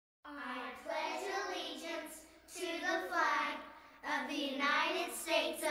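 Children's voices reciting the opening of the Pledge of Allegiance, "I pledge allegiance to the flag of the United States of America," in short phrases with brief pauses between them, starting a moment in after silence.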